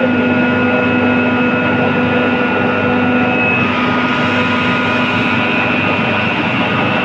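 Loud, steady machinery drone with several constant tones humming through it.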